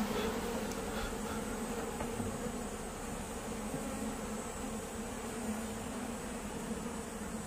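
Asian honeybees buzzing as a steady hum over the open combs of a hive under inspection.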